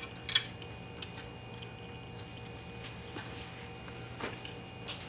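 Metal spoon and fork clinking sharply once against a bowl as they are set down, about half a second in, followed by a few faint light clicks over a low steady hum.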